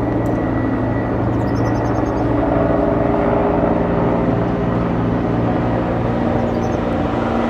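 Bell 412EP helicopter's twin-turbine engines and rotor running steadily as it flies off, with a fast, fine beat from the blades under an even drone.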